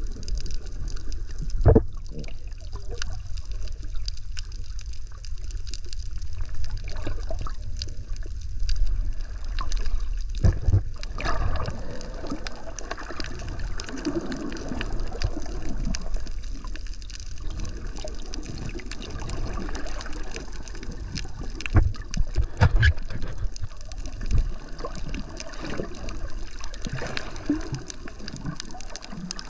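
Muffled underwater water noise: a steady low rumble with sloshing and gurgling, broken by a few dull knocks, the loudest about two seconds in and twice more around two-thirds of the way through.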